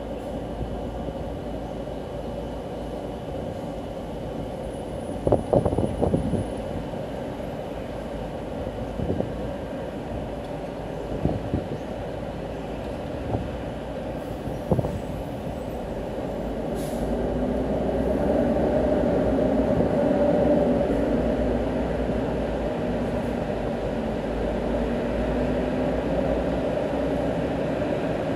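City street traffic on wet roads: a steady low rumble of engines and tyres. Short knocks and clatters come about six seconds in and again around twelve and fifteen seconds, and a louder swell of passing vehicles builds from about seventeen seconds and eases off near the end.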